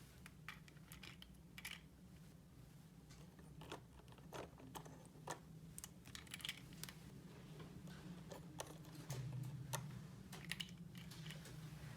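Light, irregular clicks and taps of small plastic toy pieces being handled, over a faint steady low hum.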